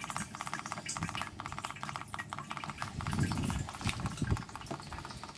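Hot distilled fuel trickling from a waste-oil still's outlet pipe into a plastic jerrycan, with a fast, even crackle.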